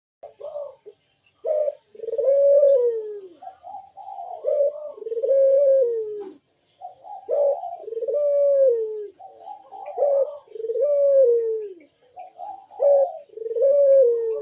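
Puter (domestic ringneck dove) giving its 'bekur' cooing song over and over: a few short notes and then a long coo that falls in pitch, the phrase repeating about every two and a half seconds.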